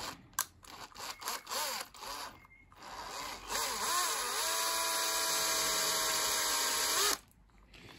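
Cordless drill running for about three and a half seconds with its bit in a small hole in the nail gun's metal piston link. Its pitch wavers at first, then holds steady, and it stops abruptly; a few light clicks and knocks of handling come before it.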